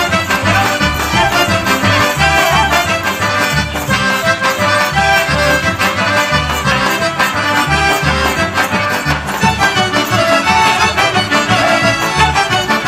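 Serbian folk dance music from the Niš region, led by accordion, with a steady beat.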